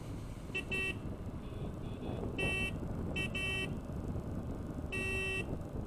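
A vehicle horn sounding in six short beeps, the last a little longer, over the steady low rumble of engine and road noise from a moving motorcycle.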